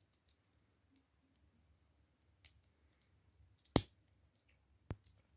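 Small plastic toy parts clicking as a Kinder Surprise toy is handled and fitted together: three short sharp clicks, the loudest about two-thirds of the way through.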